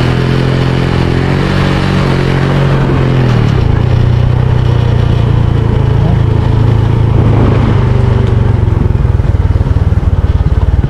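Small motorcycle or scooter engine running steadily while being ridden. About three and a half seconds in, the note turns rougher and slightly louder.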